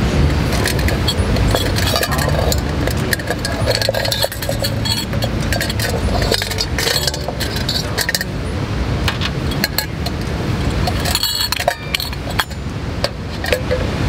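A cloth pouch rustles as a small stainless steel camping pot is unwrapped and handled, with light metal clinks throughout and a quick run of sharper clinks near the end.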